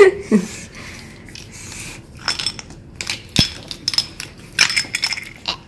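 Plastic toy kitchen utensils clicking and scraping against a serving plate as a play-dough pizza is cut, with several sharp light clinks in the second half.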